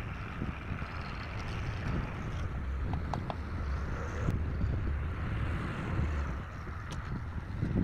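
An engine running steadily with a low rumble, and a few faint light clicks and knocks over it.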